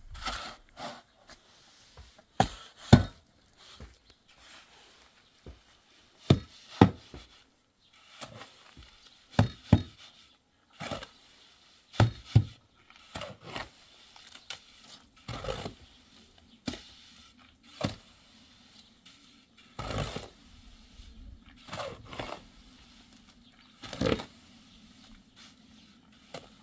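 Hand building work: irregular knocks and scrapes, with several heavy thuds that come in pairs.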